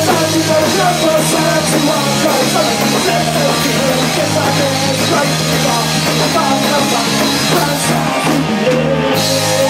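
Punk rock band playing live and loud, electric guitar and bass guitar driving a fast rock song.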